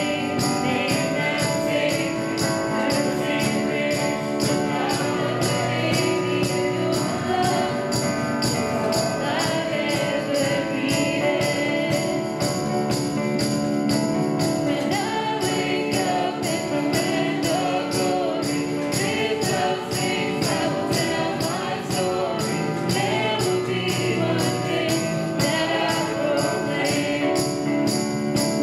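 A contemporary worship song is playing, with singing over a band and sustained chords. A steady high percussion tick beats about twice a second.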